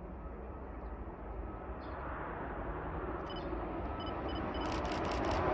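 Distant HXD3C electric locomotive and its passenger coaches approaching on the rails, a low rushing rumble that grows steadily louder. Faint high repeated tones and a short clatter of ticks join in the second half.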